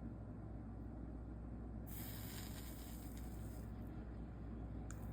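Soldering iron hissing on a fluxed solder seam of stained glass, one hiss lasting about a second and a half about two seconds in, over a steady low hum; a short click near the end.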